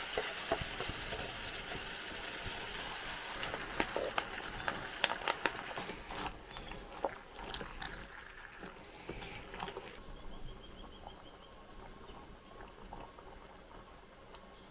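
Vegetable curry sizzling and bubbling in a pot on a camp stove, with a spoon stirring and clicking against the pot. Quieter after about ten seconds.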